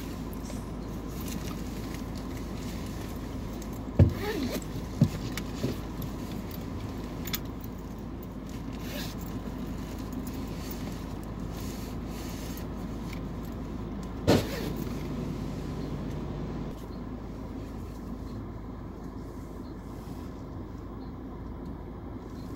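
Automatic car wash heard from inside the car cabin: water spray hitting the windscreen and bodywork as a steady hiss, with a few sharp knocks, the loudest about four seconds in and again around fourteen seconds.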